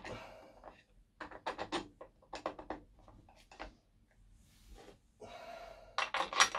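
Copper bus bars being handled and set down onto LiFePO4 battery cell terminals: clusters of quick light clicks and knocks, a brief rubbing sound around five seconds in, and a louder rattle of knocks near the end.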